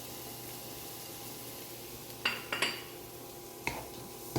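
A kitchen utensil clinking against a cooking pan: three sharp clinks in the second half, over a faint steady background, as spices are added to vegetables in the pan.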